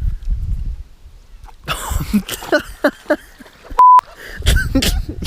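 A short steady censor bleep about two-thirds of the way in, cutting across bursts of a man's yelling and outbursts during a fishing freakout.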